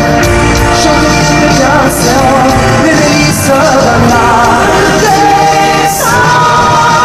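Male lead vocalist singing at full voice over a pop-rock musical band backing, with wavering sung lines and a long held note starting about six seconds in.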